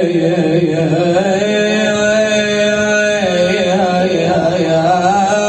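A man's voice singing a long, ornamented melismatic line of a naʿī lament without words, over a steady low tone that steps down about three seconds in.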